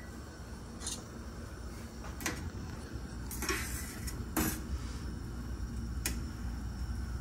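Metal utensil clinking against a stainless steel saucepan while stirring pasta nests in boiling water to open them, several sharp clinks about a second apart over a low steady hum.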